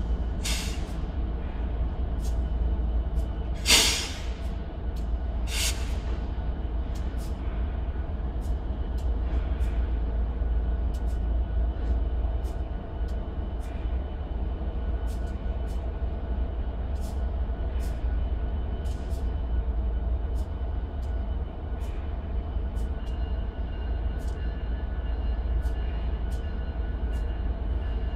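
Diesel locomotives idling with a steady low rumble, and a sharp hiss of air being released about four seconds in, with shorter hisses just before and after it.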